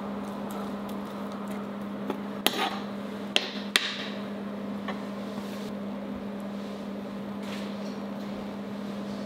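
A metal spoon clinks against a frying pan four times, about two to four seconds in, while breaking up canned tuna. A steady low hum runs underneath.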